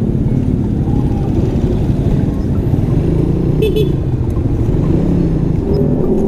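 Motorcycle engine running steadily at low speed, with a brief high beep about three and a half seconds in.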